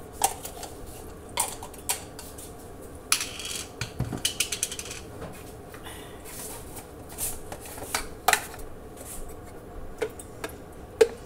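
A metal spoon clinking and scraping against dishes and food containers while curries are dished out, with separate sharp clinks and a busier run of clatter about three to five seconds in.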